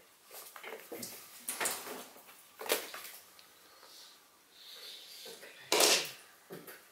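Hollow plastic knocks and clatters as a toy terrier puppy noses and pushes a plastic container with a blue lid across a wooden floor. The loudest knock, near the end, is the container tipping over onto the floor.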